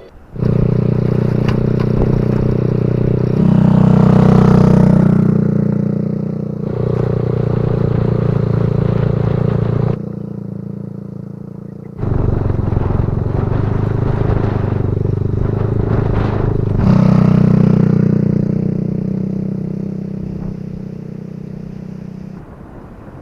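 Motorcycle engine running while being ridden, its note swelling and easing with the throttle. It drops off sharply about ten seconds in, comes back abruptly two seconds later, and fades near the end.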